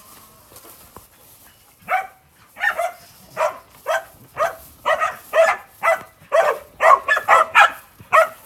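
A dog barking over and over, starting about two seconds in, with the barks coming faster toward the end.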